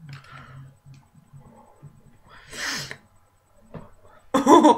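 A person's breathless, wheezy suppressed laughter, which the uploader calls a slight asthma attack: short low pulses, a sharp noisy breath about two and a half seconds in, then a loud burst of high-pitched laughing near the end.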